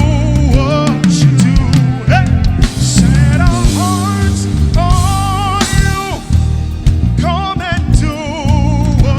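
Live gospel praise-and-worship band playing, with drums and bass under a held, wavering sung melody line.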